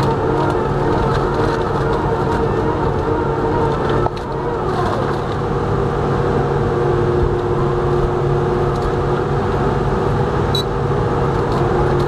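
Log shredder with toothed rotors running under load as it chews into a large log: a steady, loud mechanical drone with a constant pitch. The sound breaks briefly about four seconds in, and a falling whine follows.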